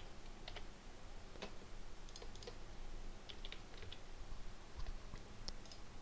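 Computer keyboard being typed on: faint key clicks coming singly and in small clusters of two or three.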